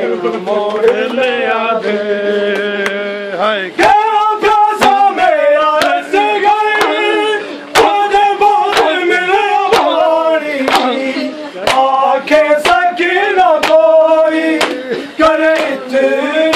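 Men's voices chanting a Shia noha (lament) over rhythmic matam, hands slapping on chests to keep the beat. The slaps come sharply about once a second, most steadily from about four seconds in.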